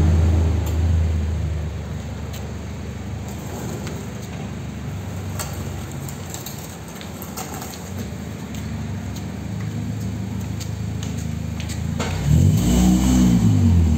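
Lowered Honda Mobilio's four-cylinder engine running, settling to a quieter idle with scattered light clicks. About twelve seconds in it revs up once and falls back down.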